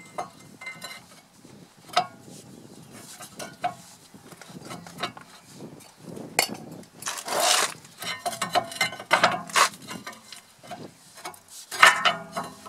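A new brake disc being worked by hand onto the rear wheel hub of a Citroen Xsara Picasso: scattered metallic clinks, knocks and scrapes as it is pushed and wiggled into place, with a few louder scrapes.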